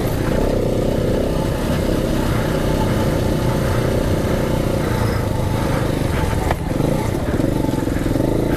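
KTM 690 Enduro R's single-cylinder engine running steadily under throttle on a dirt track. It briefly eases off about two-thirds of the way through, then picks up again.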